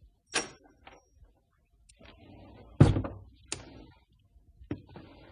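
Loose screws and nails clattering: sharp metal clinks, a short rattle, then the loudest knock with a dull thump just under three seconds in, followed by more clinks and a further rattle near the end.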